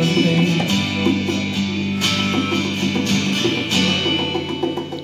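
Live acoustic guitar being strummed, with held chords and two sharper accented strokes about two seconds in and nearly four seconds in.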